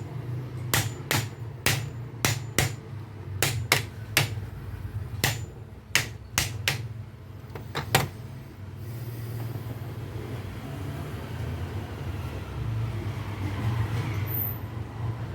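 Hammer blows on an alternator being dismantled for a bearing repair: about fifteen sharp strikes in uneven groups over the first eight seconds, then they stop and only a steady low hum remains.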